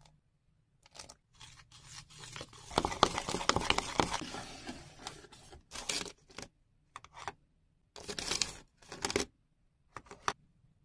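Plastic spatula scraping across a small metal baking pan to lift off baked pretzels, with clicks where it catches. The longest, loudest scraping comes a few seconds in, followed by several short scrapes and taps.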